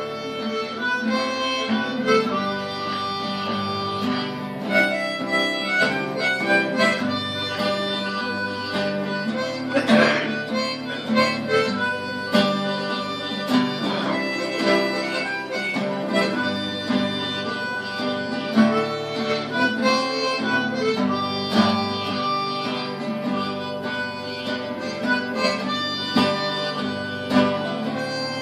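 Harmonica playing a melody, cupped in the hands against a microphone, with a guitar strumming an accompaniment behind it.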